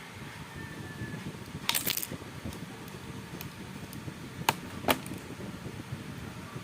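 Hands handling an Ethernet cable and crimping tool: rustling, with a quick cluster of sharp clicks about two seconds in and two more single clicks a little later.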